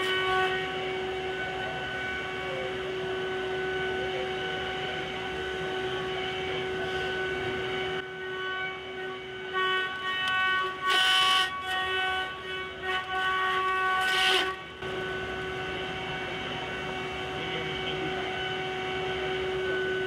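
Fanuc Robodrill vertical machining centre cutting under flood coolant: a steady, high spindle whine with a stack of overtones. Partway through, the whine breaks up for a few seconds, with two loud rushes of noise, before it settles back to a steady whine.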